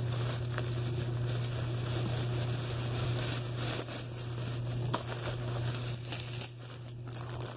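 Thin plastic shopping bag crinkling and rustling as it is handled and squeezed, over a steady low hum.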